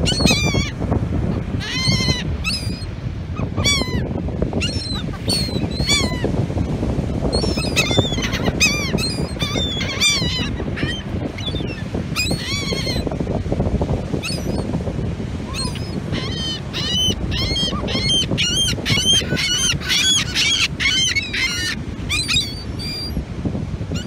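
A flock of gulls calling over and over in short, arched cries, thickest in the second half, over the steady rumble of breaking surf.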